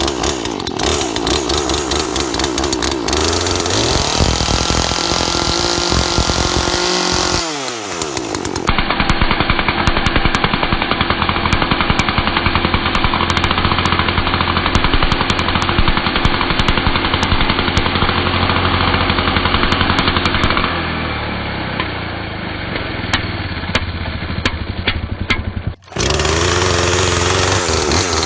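Chainsaw running loudly and revving; its pitch falls sharply about seven and a half seconds in, and the sound changes abruptly twice.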